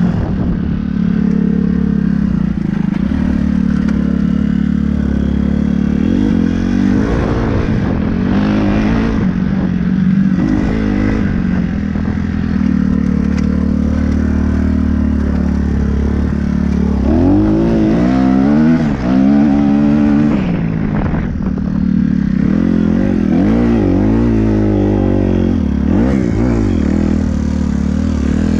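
Kawasaki 250cc dirt bike engine being ridden hard, revving up and down through the gears, with a run of quick rising and falling revs in the second half.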